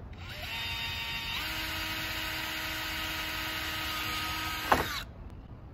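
Cordless drill whining as it bores through the plastic floor of a Plano storage box. The motor's pitch climbs over the first second and a half and then holds steady. Near the end a sharp crack comes as the bit pops through, and the drill stops right after.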